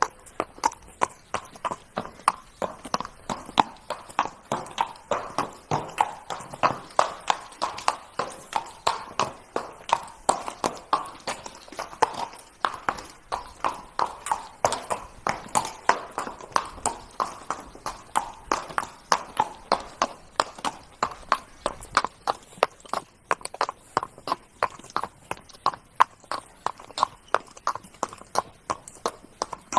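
Horse's hooves trotting: a steady, even clip-clop of hoofbeats, about two to three a second.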